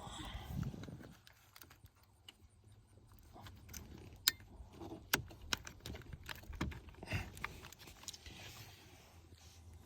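Hands working at a plastic trim clip on a steering column, giving scattered sharp clicks and light rattles, with a few louder snaps around the middle.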